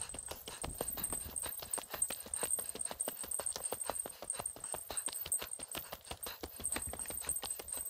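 A hiker's footsteps walking steadily uphill on a mountain road, a quick regular run of crunching steps.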